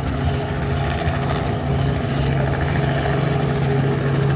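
Engine of a small tourist train running steadily, heard from aboard, a constant low hum.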